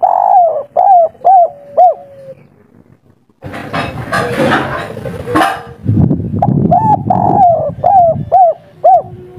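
Spotted dove of the local 'kuk 3' song type cooing: two phrases, each a long coo followed by three short, clipped notes, one at the start and one about six seconds in. Between the phrases there is a few-second stretch of rushing noise.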